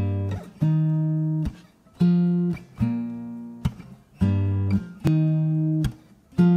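Intro music: a slow plucked guitar tune, one note or chord after another, each ringing out for most of a second before the next, in a phrase that repeats about every two seconds.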